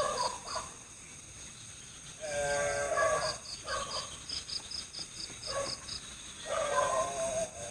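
Night forest chorus: frogs give repeated short, croaking calls, with a rapid series of high insect chirps, about four a second, over a steady high hum of insects.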